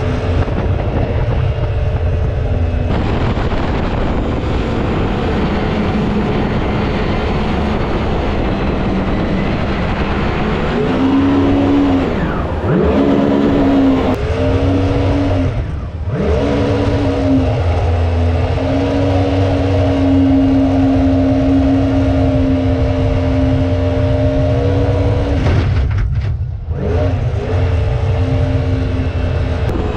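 Mini jet boat's Yamaha 1053 cc four-stroke engine running hard under way over a steady rush of water. Its pitch dips and climbs back a few times around the middle and near the end as the throttle eases and opens.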